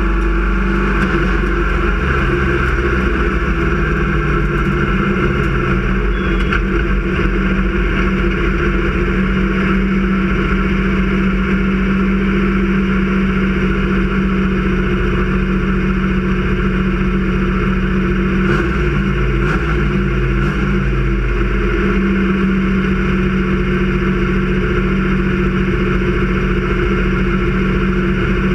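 Sportsman race car's engine running hard at racing speed, heard from inside the cockpit. It drones loudly and steadily, and its pitch shifts briefly about four seconds in and again around twenty seconds.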